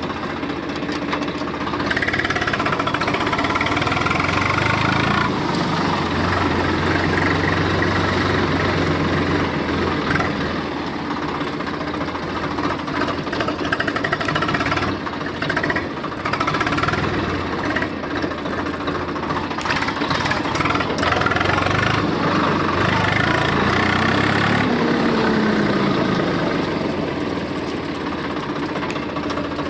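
Small DC motor of a homemade toy tractor running continuously, driving its plastic reduction gears as the tractor pulls a loaded cardboard trolley, its pitch rising and falling several times as it goes.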